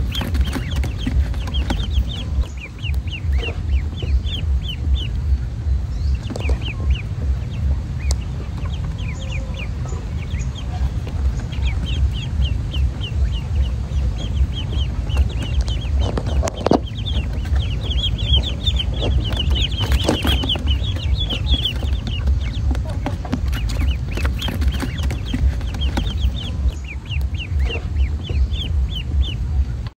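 Poultry calling while feeding at a tub of mash, with runs of quick, short, high chirping notes again and again. Under the calls runs a steady low fluttering rumble.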